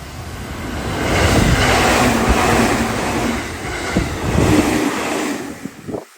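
Six-car electric commuter train, a 211 series coupled to a 313 series, passing at speed over a level crossing: the noise swells to a peak with knocks from the wheels, then falls away after about five seconds.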